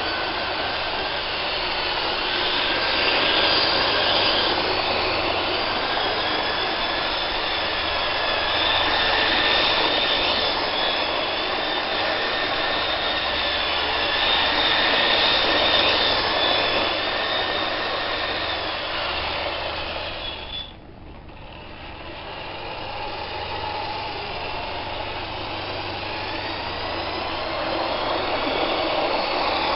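Lima O-gauge model electric locomotive running with its coaches on sectional track: a steady electric-motor whine that drifts up and down in pitch over the rumble of the wheels on the rails. The sound drops away sharply about two-thirds through, then builds back up.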